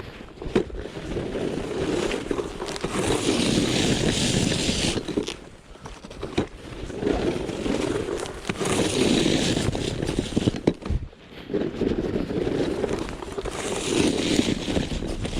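Snow shovel blade scraping over pavement in repeated strokes, each lasting a couple of seconds with short pauses between.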